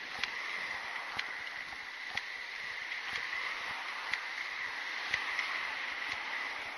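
Footsteps of someone walking on a concrete sidewalk, a light click about once a second, over the steady hiss of traffic on the road alongside and a steady high-pitched hum.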